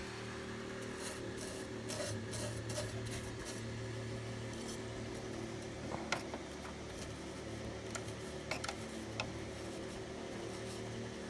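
Hand work on a caked, dirty computer heatsink: rubbing and scraping with scattered small clicks and knocks, over a steady low hum.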